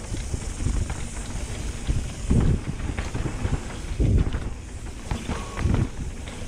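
Mountain bike descending a dirt trail at speed: tyres rolling over the dirt and the bike rattling, with wind rushing over the microphone. Three louder low thumps come from bumps about two and a half, four and six seconds in.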